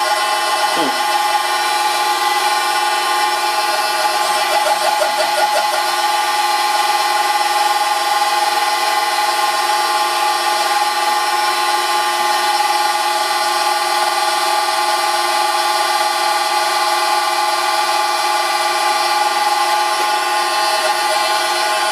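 Vintage lathe running steadily, driven by a one-horsepower three-phase motor on a variable frequency drive through a V-belt: a constant whine made of many fixed tones. A short falling squeal comes about a second in.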